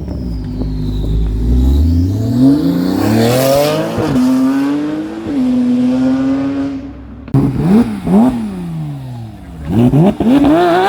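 Car engine accelerating hard, its pitch climbing for about four seconds and then holding steady. After a sudden break it gives two or three quick revs up and down, then climbs in revs again near the end.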